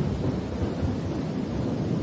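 Thunder rumbling low and slowly fading after a crack just before, over steady rain hiss.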